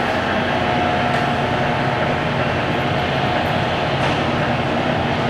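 Monarch 10EE toolroom lathe running with its spindle turning a small six-jaw chuck, a steady machine hum with a thin, even tone in it.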